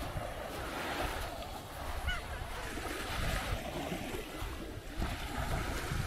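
Small sea waves washing onto a sandy beach, their hiss rising and falling, with wind buffeting the microphone in a low rumble.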